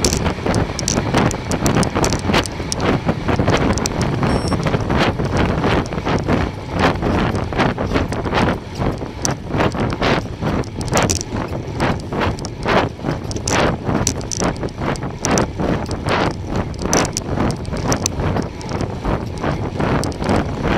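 Wind buffeting the microphone of a camera on a moving bicycle, with frequent irregular clicks and rattles as the bike runs over the road.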